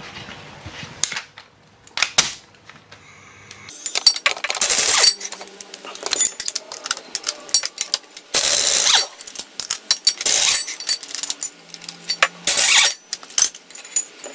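Compressed air from a blow-gun nozzle hissing in several short blasts, each under a second, with metallic clicks and clinks between them: blowing debris out of the threaded puller hole in a taper-lock sheave hub.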